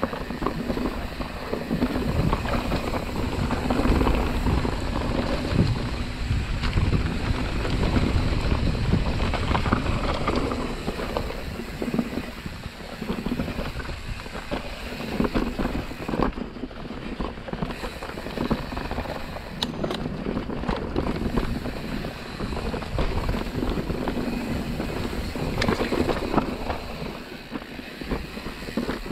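Mountain bike rolling fast down a dirt forest trail: knobby tyres on dirt and leaf litter with a steady rumble, and the bike clattering and knocking over bumps. Wind rushes across the camera's microphone.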